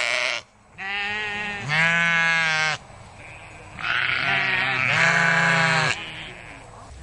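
Sheep bleating: four long bleats, about a second each, coming in two pairs with a short pause between the pairs.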